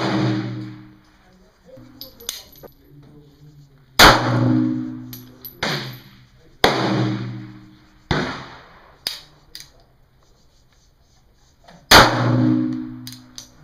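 .380 pistol firing slow, deliberate single shots: about half a dozen sharp reports spaced one to four seconds apart, the loudest about four seconds in and near the end, each followed by a ringing echo under the range's wooden roof.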